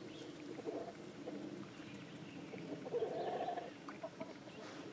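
Domestic hens clucking quietly, with one louder, drawn-out call about three seconds in.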